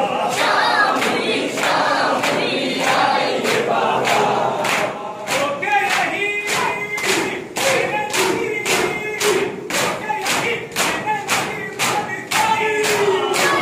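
A group of men chanting a Muharram mourning lament (nauha) in unison. Over it come sharp, rhythmic slaps of hands beating on chests (matam), about two to three a second.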